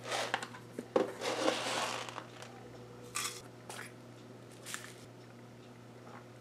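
Spice bottles being handled and a plastic flip cap on a spice jar being opened: a few short rustles and clicks, with a longer rustle about a second in.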